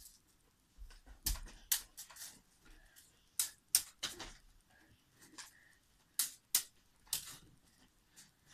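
Sporadic light clicks and taps, about a dozen at uneven intervals, with faint rustling between them.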